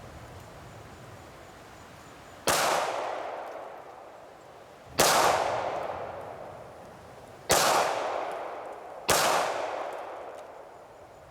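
Beretta 92FS 9mm pistol firing Hornady 135 grain Critical Duty hollow points, four deliberate single shots, each a sharp crack that rings out and fades over a second or two. The first three come about two and a half seconds apart, the last one sooner.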